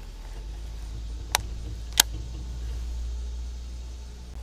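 Steady low wind rumble on the microphone, with two sharp clicks about a second and a half and two seconds in, the second the louder.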